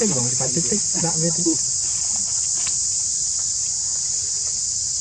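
Steady, high-pitched chorus of insects, unbroken and unchanging throughout.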